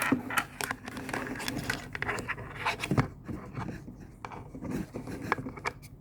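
Handling noise: irregular clicks, taps and scrapes of a small plastic appliance and its parts being handled and set down.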